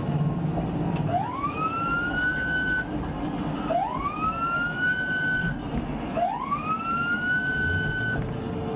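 Police car siren giving three short wails, each rising in pitch, holding briefly and cutting off, about two and a half seconds apart, over a steady low road and engine rumble.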